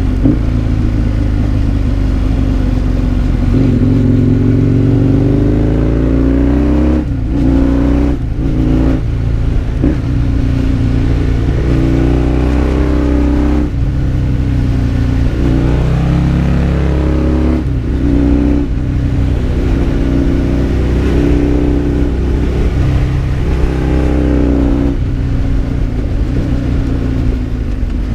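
Husqvarna Nuda 900's parallel-twin engine heard from the bike as it rides, revving up and easing off again and again, with its pitch dropping briefly at several gear changes or throttle lifts.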